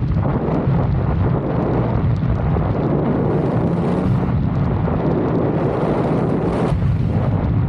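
Lexus IS 250's V6 engine running steadily while driving, with road and wind noise.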